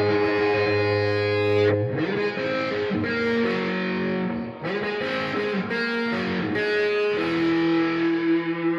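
Intro music led by a distorted electric guitar, playing held notes that change every second or so with some sliding between them.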